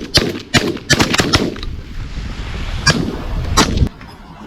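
A volley of shotgun blasts from several hunters firing together: a quick run of shots in the first second and a half, then a single shot about three seconds in and two more close together near the end.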